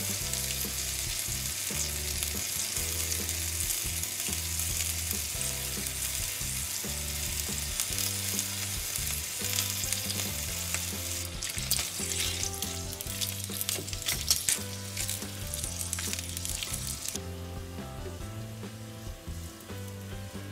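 Bacon strips sizzling and crackling in fat in a small stainless steel frying pan, a steady hiss with scattered pops. The hiss falls away abruptly near the end.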